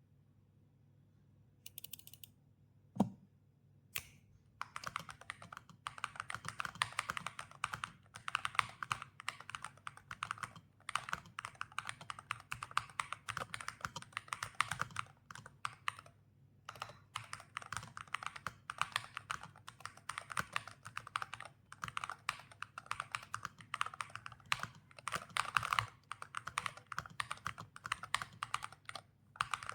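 Typing on an Epomaker HE75 V2 hall-effect (magnetic-switch) keyboard, a creamy, thocky keystroke sound. A single sharp knock comes about three seconds in, a lone keystroke follows, then fast continuous typing with a brief pause a little past halfway.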